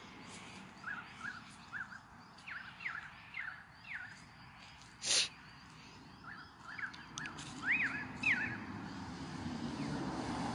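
A bird calling: short rising chirps repeated quickly in two runs, with a brief loud rustle about five seconds in.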